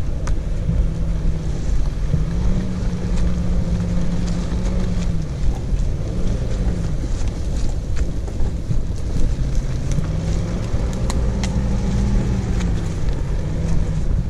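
Off-road 4x4 engine crawling at low speed, its revs rising and falling several times, with occasional knocks and wind buffeting on the microphone.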